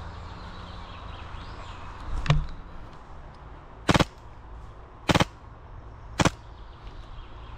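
Three sharp shots about a second apart from an airsoft rifle, each a brief crack standing well above the outdoor background, with a single duller knock shortly before them.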